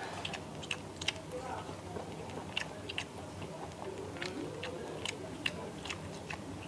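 Eating at a table grill: metal chopsticks clicking sharply and irregularly against the grill pan of gopchang (grilled tripe), with chewing, over low background voices.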